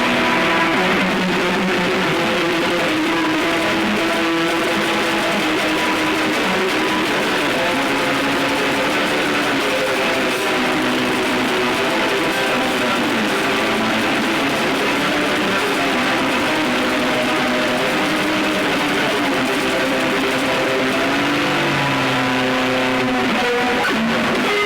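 Drone and noise music: a dense wall of distorted, sustained tones over a constant hiss, with the pitches shifting every second or two.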